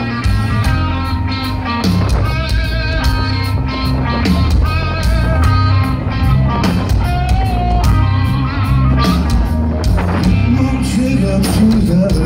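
Live hard rock band playing loud through a PA: distorted electric guitars, bass and drum kit, with a male singer carrying the melody.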